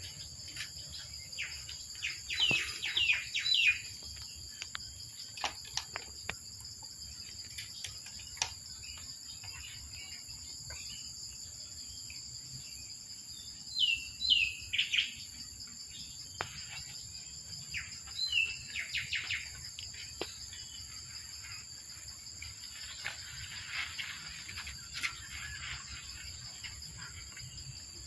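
Small birds chirping in quick runs of short, falling notes, in three main bursts with fainter ones near the end, over a steady high-pitched drone of insects.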